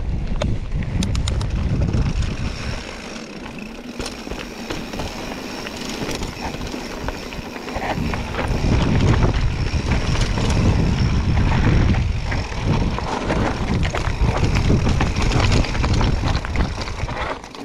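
Mountain bike riding over a rough, stony trail: tyres crunching and the bike rattling, with wind buffeting the microphone. The wind rumble eases about three seconds in and comes back strongly around eight seconds in.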